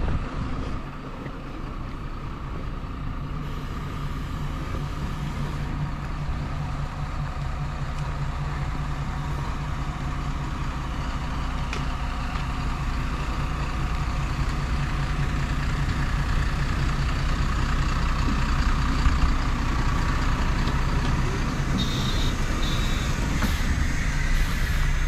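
A bus engine running steadily, a low hum that grows gradually louder. Two short high beeps sound near the end.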